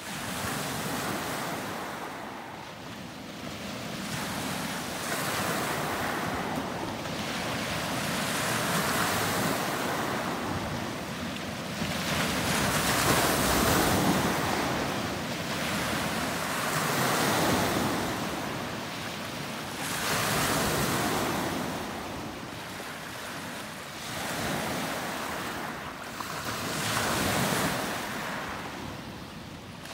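Small lake waves breaking on a pebble beach and washing up over the stones, the surf swelling and fading every three to four seconds.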